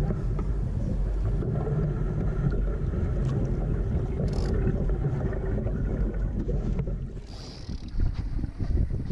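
Wind rumbling on the microphone aboard a Laser sailing dinghy under way, with water noise from the hull. The rumble eases about seven seconds in, and a few light knocks follow near the end.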